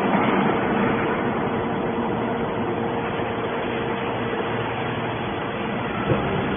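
Hydraulic metal can baler running: a steady machine drone with a held hum, and one short knock about six seconds in.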